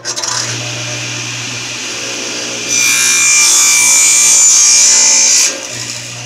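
Small table saw started up and running, with a steady motor hum. From about a third of the way in, the blade cuts a 45-degree miter through a fir 1x2 for about three seconds, louder and hissier, then spins free again.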